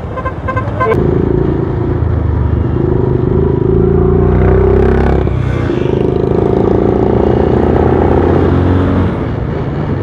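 A road vehicle's engine running loudly at a steady pitch. It starts about a second in, a brief sweep passes through around the middle, and it eases off near the end.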